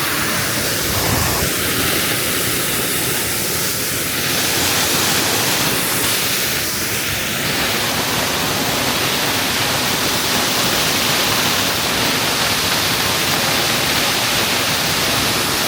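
Waterfall rushing: a loud, steady wash of falling water close to the microphone, with a brief low rumble about a second in.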